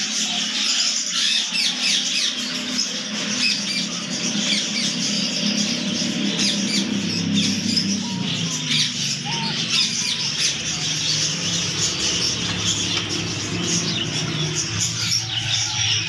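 A shop full of caged budgerigars and other small birds chirping and chattering all at once, a dense, steady din of many overlapping high chirps.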